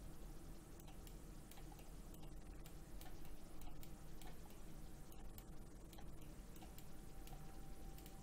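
Faint, irregular computer mouse clicks over a low, steady hum.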